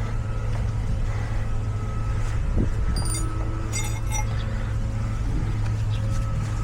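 Steady low hum of a running vehicle, with light metallic clinks of brake parts being handled and fitted, two clusters about three and four seconds in.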